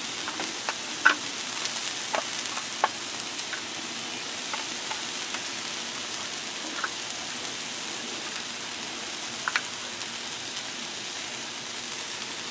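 Chopped beef sizzling steadily on a hot Blackstone flat-top griddle. A few light clicks of metal tongs against a foil pan of oil, mostly in the first three seconds.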